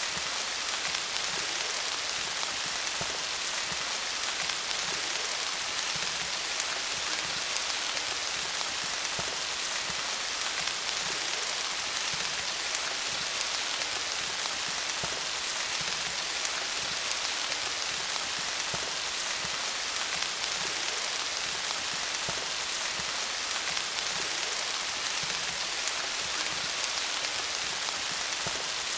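Steady rain falling on leaves: a dense, even patter of many small drops.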